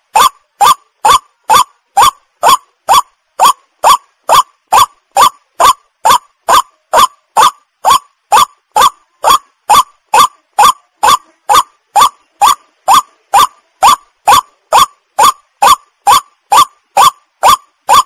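White-breasted waterhen calling: short, harsh notes repeated evenly at about two a second, each sliding up in pitch.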